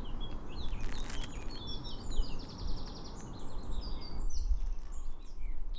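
Songbirds singing: a string of varied high chirps and whistles, with a fast trill about two and a half seconds in, over a low background rumble that drops away after about four seconds.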